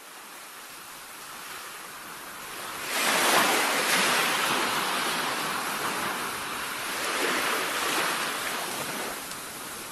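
Ocean surf: waves washing in as a steady hiss that swells sharply about three seconds in, slowly eases off, and starts building again near the end.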